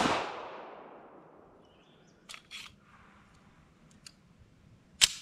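A 9 mm SIG Sauer P226 Mk25 pistol shot ringing out and dying away over about a second and a half. Then a few light metallic clicks as the pistol is handled, and a sharp, short metallic snap near the end.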